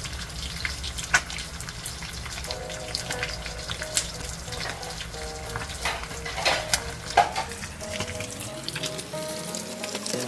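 Tilapia frying in hot oil in a pan: a steady sizzle with irregular pops and crackles.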